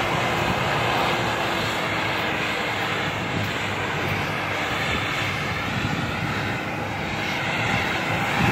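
Mitsubishi L200 pickup's engine running steadily under load as the truck pushes through deep, icy snow: a continuous drone mixed with the churn of the tyres.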